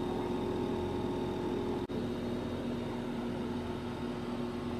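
A steady machine hum with a few held tones over an even rushing noise, briefly cutting out about two seconds in and going on with one tone a little lower.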